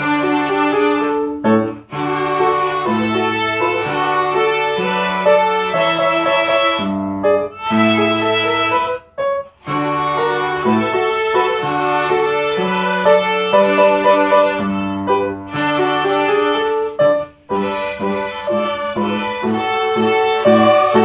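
Instrumental background music led by bowed strings with piano, in long held notes that break off briefly a few times.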